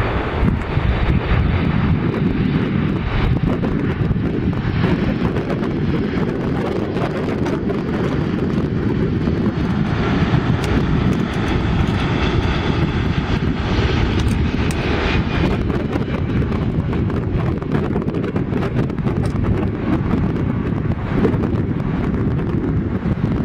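Twin Pratt & Whitney PW2040 turbofans of a Boeing 757-232 on landing approach, passing low overhead: steady loud jet noise, with a whine standing out over it around the middle as the plane goes over.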